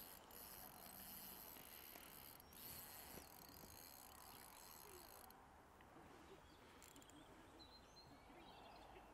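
Near silence: faint outdoor ambience, with a faint high hiss that stops about halfway through and a few faint bird chirps near the end.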